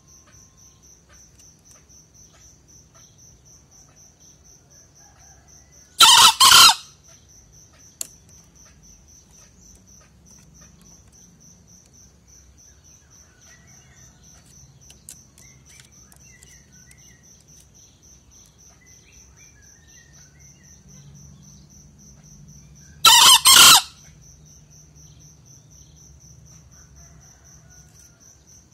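Male green junglefowl crowing twice, each a short two-part crow under a second long, the second about seventeen seconds after the first. A steady high insect trill runs underneath.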